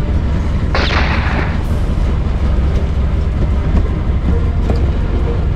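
Fishing boat's engine running with a steady low rumble. A short burst of hissing noise comes about a second in.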